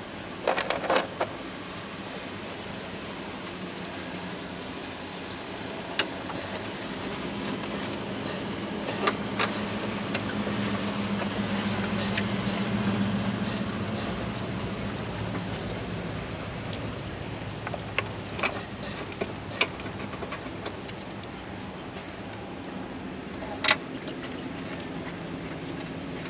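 Sharp plastic clicks and knocks as the airbox housing and intake ducting are pressed into place in the engine bay, scattered one or two at a time. Beneath them runs a low steady hum that grows louder in the middle and then fades.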